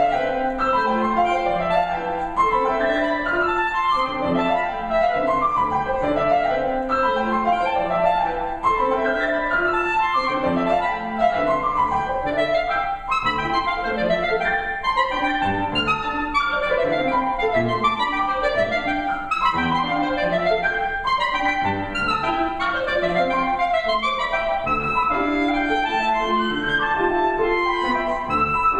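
Clarinet and piano playing contemporary classical music together, a continuous stream of quick notes without a break.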